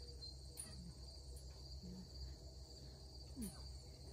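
Insect chorus: a steady, high-pitched trill that runs unbroken, over a faint low rumble.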